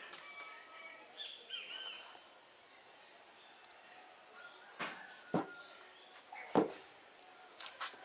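Two dull thuds about a second apart, past the middle, as sections of dry coconut palm trunk are set down on a wooden plank bench, with a few lighter knocks near the end. Birds chirp in the background near the start.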